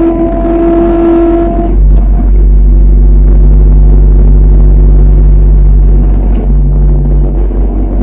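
Engine of heavy forklift-type machinery running close by as a deep, steady rumble. A high steady whine sits over it for the first couple of seconds, and the engine note drops slightly about six and a half seconds in.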